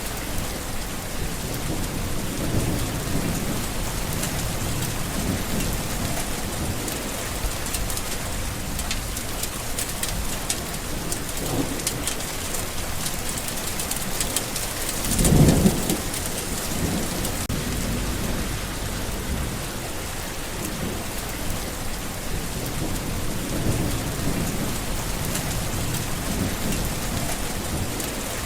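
Steady heavy rain hissing and pattering, with low rolls of thunder coming and going and one louder thunder rumble about halfway through.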